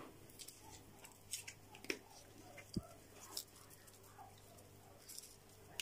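A few faint, short clicks and taps, spread irregularly, as chili flakes are shaken from a small spice bottle onto a plate, over a quiet room hum.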